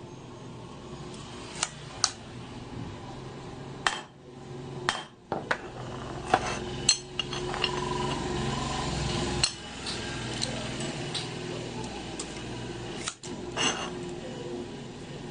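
Metal tools and parts being handled on a workbench: scattered clinks, taps and knocks over a steady low hum.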